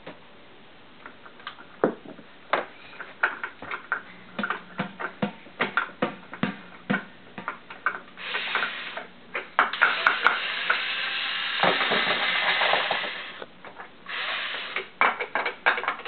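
Plastic toy nuts, bolts and tools clicking and clattering on a children's Bosch toy workbench, in quick irregular knocks. There are a few longer stretches of steady noise, the longest about four seconds past the middle.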